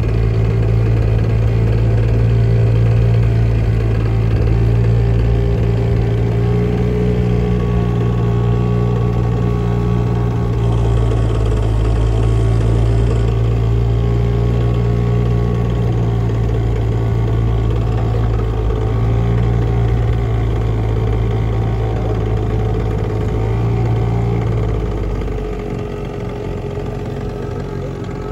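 Outboard motor of a small boat running steadily at cruising speed, easing off near the end.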